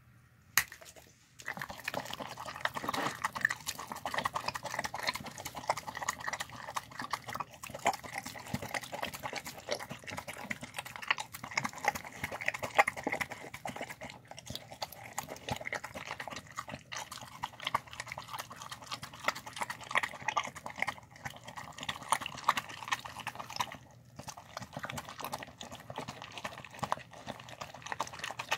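A dog eating soft food of rice, chicken and vegetables from a bowl: continuous wet chewing, licking and mouth clicks, starting about a second in.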